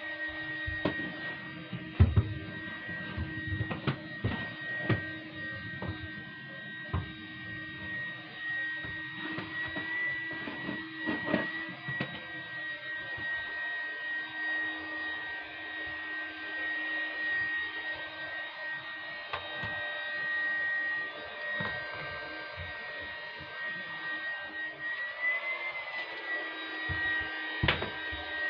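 Vacuum cleaner running with a steady whine. Scattered knocks and bumps are heard over roughly the first twelve seconds.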